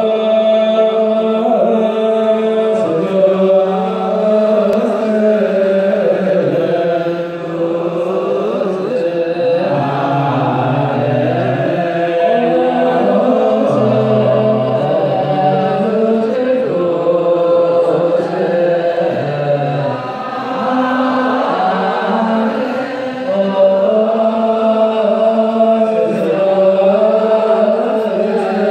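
Ethiopian Orthodox liturgical chant, the mesbak, the psalm verse sung before the Gospel: voices chanting in long, held notes that step slowly between pitches, with two short breaks.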